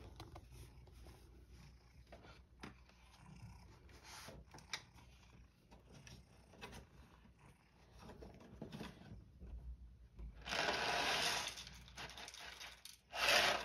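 Faint clicks and rustles of cat food being got ready, then a louder rustling sound lasting over a second about ten seconds in and a shorter one near the end.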